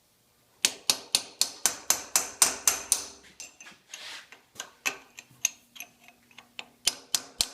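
Hammer striking a chisel against a machined-thin exhaust valve seat in a cast iron bulldozer cylinder head, driving the seat out: a quick run of sharp taps, about four a second, then slower, scattered taps.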